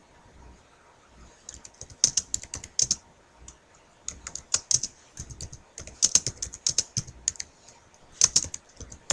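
Computer keyboard being typed on in bursts of quick key clicks, starting about a second and a half in.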